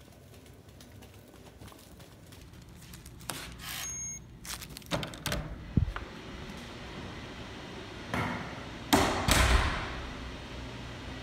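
A wooden door being opened and pushed through, with clicks, knocks and rustling of handling; the loudest noises, a couple of short rushes with a dull thud, come near the end.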